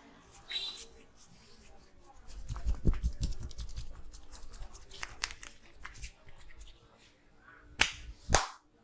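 Hands massaging a person's head and neck: rubbing and patting with soft thumps about two to three seconds in, a run of quick taps and clicks, and two sharp snaps near the end.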